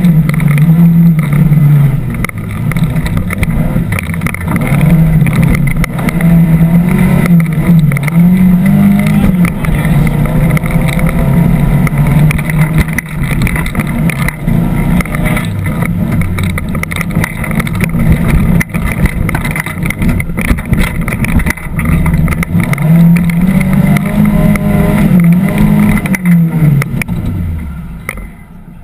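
Off-road 4x4 engine running hard, its revs rising and falling repeatedly, with frequent knocks and rattles as it crosses rough sandy ground. Near the end the revs drop and the engine sound falls away to a much lower level.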